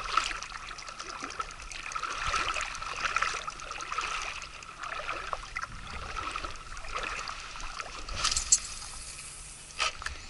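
River water lapping and trickling at the bank, with many small clicks through it. A short sharp noise comes about eight and a half seconds in, and a smaller one near the end.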